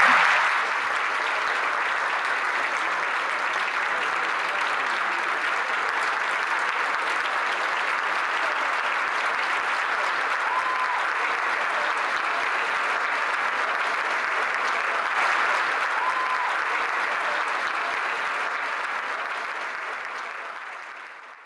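Audience applauding steadily after a conference talk, fading out near the end.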